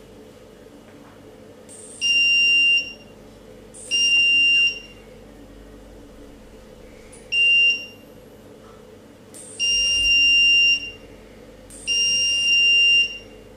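Phonefix Shortkiller phone-board short-circuit detection box beeping five times, high-pitched and unevenly spaced, each beep half a second to a second long, as its probe is put to a phone motherboard to test it for a short.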